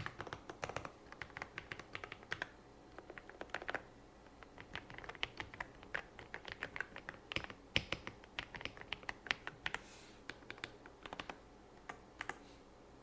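Typing on an AULA F99 Pro mechanical keyboard with linear switches: quick runs of keystroke clicks broken by short pauses, stopping just before the end.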